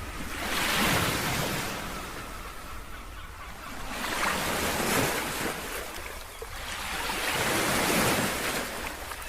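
Ocean surf: waves breaking and washing in, three swells rising and falling about every three to four seconds.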